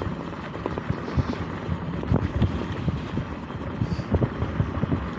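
Dirt bike riding over rough, rocky trail ground: a steady rumble with many irregular knocks and rattles from the tyres and chassis, and wind on the microphone.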